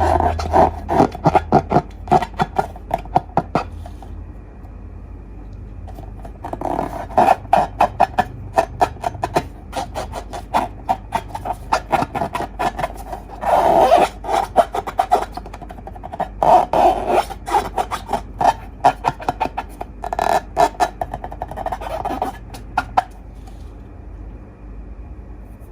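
Slime being worked in a bowl: quick runs of sticky clicks, crackles and scraping in bursts, with a few quieter pauses.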